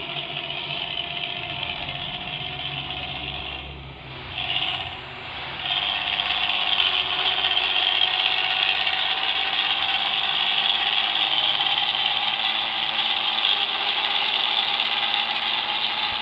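Bus engine running through a rumbling ('ngorok') exhaust. The sound dips briefly about four seconds in, then comes back louder and stays steady.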